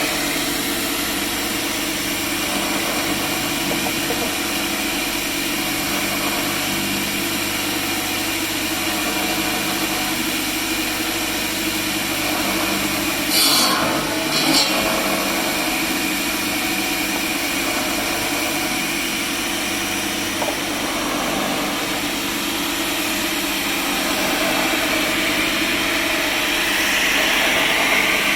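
Sawmill machinery running steadily, with two short sharp noises a little under halfway through and a brighter, hissing sound building near the end.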